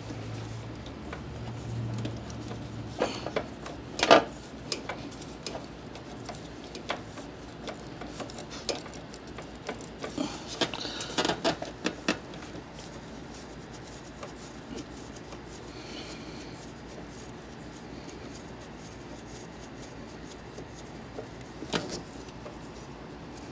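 Scattered metallic clinks, clicks and rubbing of a wrench working a small 10 mm nut deep in an engine bay, with a quick run of clinks about ten to twelve seconds in and a sharper click near the end.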